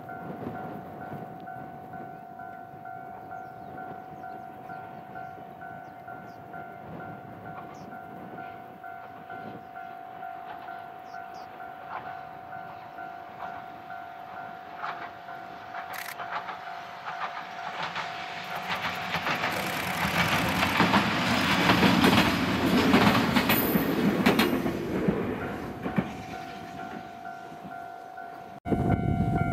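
A KuMoYa 443 electric inspection train running past on the rails, growing louder to a peak about two-thirds of the way in and then fading. Under it a level-crossing warning bell rings steadily throughout.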